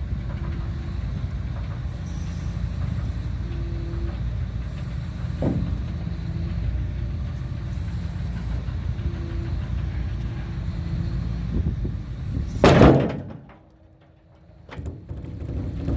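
CAT 336 excavator's diesel engine running steadily while it pounds dents out of a steel scraper apron, with a knock about five seconds in and a loud bang near the end, after which the sound drops away for about a second.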